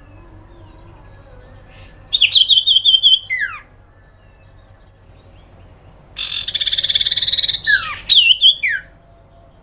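Common iora (sirpu, cipoh) calling in two bursts: first a quick run of chattering notes ending in falling whistles, then a few seconds later a buzzy rattling trill followed by sharp falling notes.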